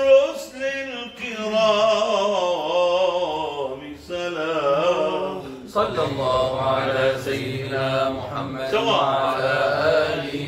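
Male munshid singing a long, ornamented melismatic line in Sufi inshad style, the pitch wavering through many turns on held vowels. About six seconds in, a fuller body of voices comes in beneath him with a steady low drone.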